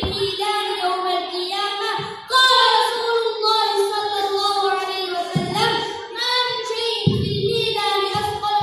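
A boy singing solo into a microphone, holding long notes.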